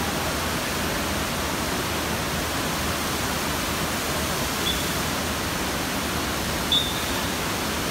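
Steady rushing water noise of an indoor water park, with two brief high-pitched chirps about five and seven seconds in.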